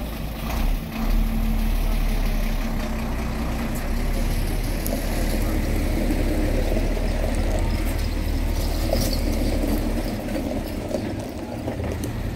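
A motor vehicle engine idling steadily with a low rumble, which grows louder about a second in and eases near the end.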